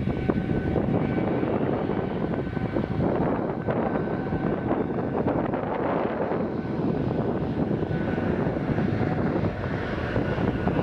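Boeing 777-300ER's two GE90 turbofan engines at takeoff thrust during the takeoff roll: a steady, loud jet noise with a faint steady whine running through it.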